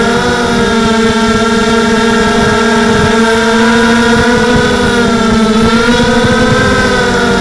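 Tarot Robocat 280 FPV quadcopter's motors and propellers whining at close range, a steady multi-toned drone whose pitch wavers with throttle, dipping briefly near the start and sagging again past the middle before rising back.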